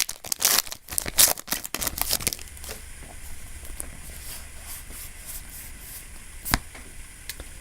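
A Yu-Gi-Oh booster pack's foil wrapper being torn open and crinkled for about the first two seconds, then faint rustling as the cards are handled, with one sharp tap near the end.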